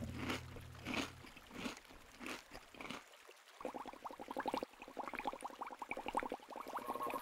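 Cartoon bubbling sound effect: a few spaced watery gurgles, then from about halfway a quick run of short rising bubble blips.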